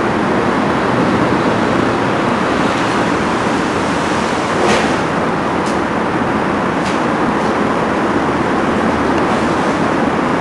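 Steady, loud noise with no distinct pitch or rhythm, with a few short, sharp clicks about halfway through.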